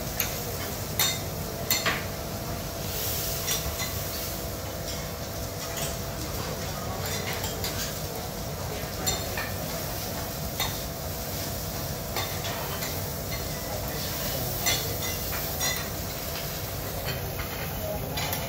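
Food sizzling steadily on a teppanyaki griddle, with scattered sharp metal clinks, like spatulas striking the hot plate.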